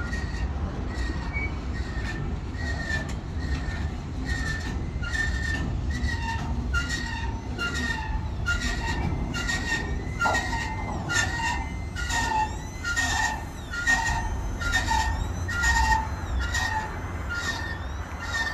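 Freight train of autorack cars rolling past over a low steady rumble. Its wheels squeal and click in a repeating pattern about every two-thirds of a second.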